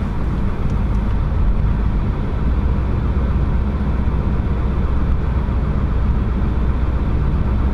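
Pickup truck's engine and tyres heard from inside the cab while driving: a steady low drone with no sudden changes.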